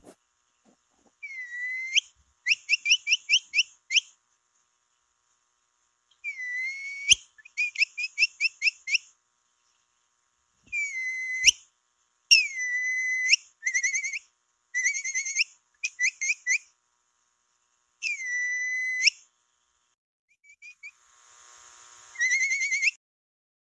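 Capybara call whistled over and over, as used to attract capybaras. Long held whistles that bend upward at the end alternate with quick runs of short rising chirps, about five a second, with short pauses between phrases and a few sharp clicks.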